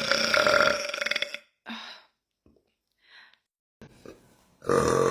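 A woman's long, drawn-out burp that trails off about a second and a half in. After a few short, faint sounds, a second long burp starts near the end.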